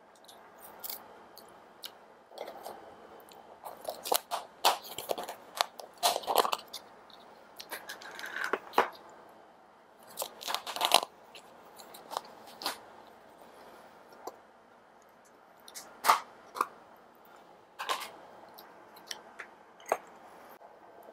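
Eating sounds: chewing and crunching food, with sharp clicks and crinkles from chopsticks and plastic food packs being handled. They come in irregular clusters, busiest in the first half.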